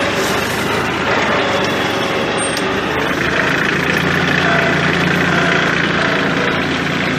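Massey Ferguson 1433 compact tractor's diesel engine running steadily as the tractor drives along, its low hum firming up about three seconds in.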